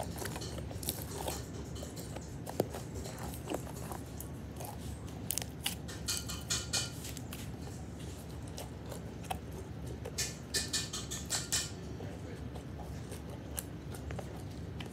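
Slime being mixed by hand, giving sticky crackling and clicking in short clusters about six seconds in and again around ten to eleven seconds, over a steady low hum.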